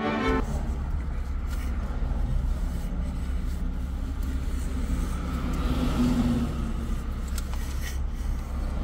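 Car engine idling, heard inside the cabin as a steady low rumble, with a few faint clicks near the end.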